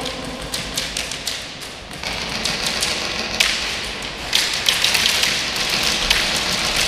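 Airsoft guns firing quick strings of sharp cracks, thickening into a dense clatter from about four seconds in.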